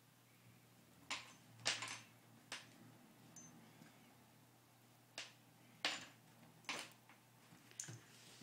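Miniature schnauzer puppy scuffling around its plastic dog bed on a wooden floor: a scattered series of sharp clicks and taps from its claws and the bed, loudest about two seconds in and again near six seconds.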